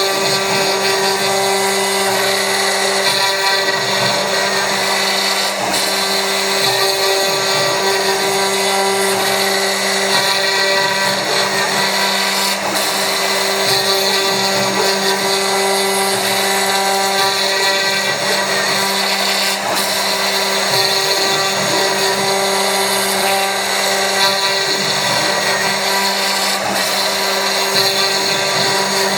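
CNC milling machine milling with a 3 mm-radius ball-nose end mill: the spindle and cutter run steadily, a hum with several steady tones over a constant noise.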